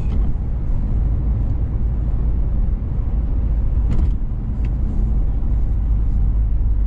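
Car road and engine noise heard from inside the cabin while driving: a steady low rumble, with a couple of short clicks about four seconds in.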